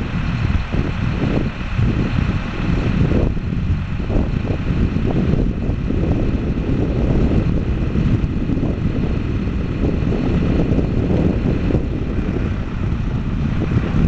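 Road roller's engine running, a steady low rumble with a faint high whine on top that fades about three seconds in and comes back near the end.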